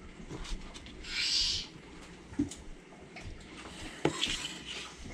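Kitchen knife cutting raw burbot fillet into bite-sized chunks on a plastic cutting mat: a brief hissing scrape about a second in, then short knocks of the blade meeting the mat about two and a half and four seconds in.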